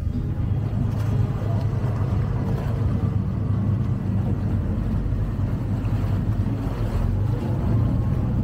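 Vaporetto water bus engine running steadily with a low, even rumble, heard from on board.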